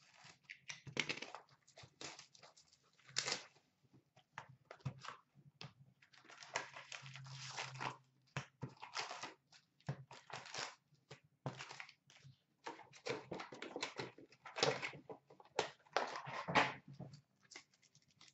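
Shrink wrap and cardboard of a sealed hockey card box being slit and torn open by hand: irregular crinkling and tearing, with a longer tear about six to eight seconds in, then the rustle of card packs being handled near the end.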